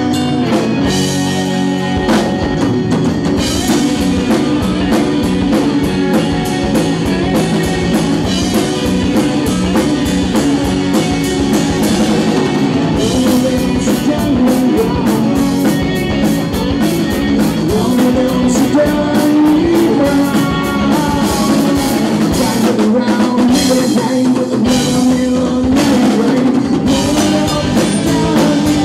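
Live rock band playing: drum kit, electric and acoustic guitars, bass and lap steel guitar. The drums and full band come in about two seconds in, after a quieter guitar passage.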